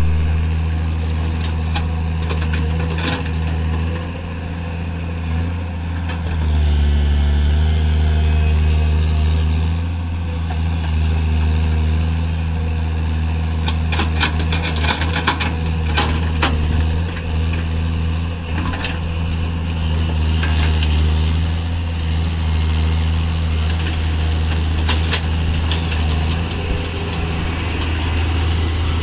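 Tata Hitachi EX130LC excavator's diesel engine running steadily, its note rising and falling as the machine works under load. A cluster of sharp knocks and clanks comes about halfway through.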